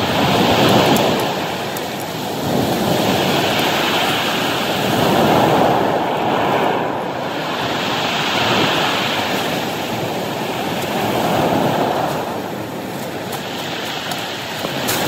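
Ocean surf breaking and washing up a steep beach of rounded cobbles, swelling and falling back every two to three seconds.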